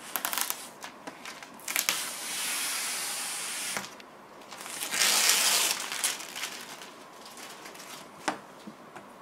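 Protective plastic film being peeled off a polycarbonate hollow-board panel: two long, hissing pulls, one about two seconds in and a louder one about five seconds in, with a few short clicks.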